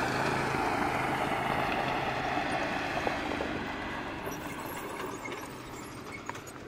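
Engines of several side-by-side off-road vehicles running as they drive along a dirt trail, a steady hum that slowly fades as they move away.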